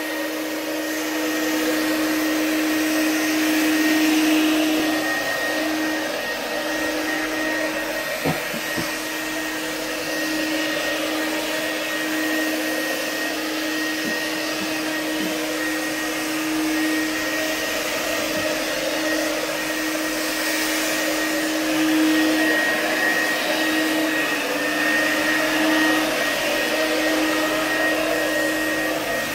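Portable fogging machine running steadily, its motor and blower giving a constant hum with an airy hiss as it sprays pesticide fog.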